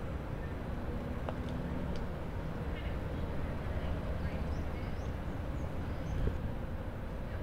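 Steady low outdoor background rumble, with a few faint high chirps of birds in the middle.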